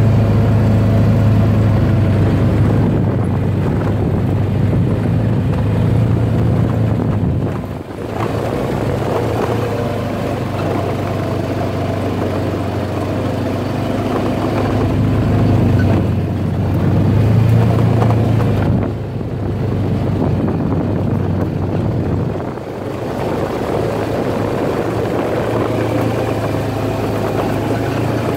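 Side-by-side UTV's engine running steadily as it drives along a dirt track, its pitch drifting with the throttle and its sound dipping briefly three times.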